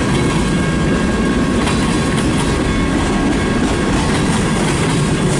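Freight train cars rolling past at close range: a steady, loud rumble and clatter of steel wheels on the rails, with a faint thin squeal above it.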